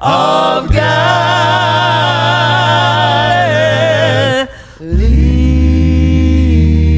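Slow worship singing: the word "of" is held as one long note with vibrato, and after a brief break about four and a half seconds in, a steady sustained chord begins.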